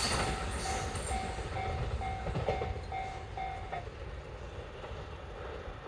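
Japanese level-crossing alarm bell ringing, a repeating tone about twice a second that stops a little before four seconds in as the crossing clears behind the passing train. The train's running noise fades away underneath.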